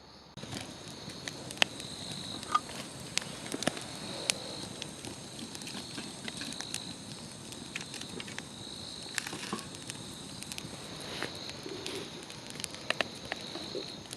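Wood campfire crackling, with irregular sharp pops and snaps from the burning wood, starting abruptly about half a second in.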